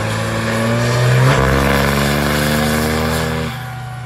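Dodge Cummins diesel pickup engine at full throttle on a chassis dyno, its pitch climbing steadily as the revs rise under load. About three and a half seconds in the sound drops off sharply as the throttle is released at the end of the pull.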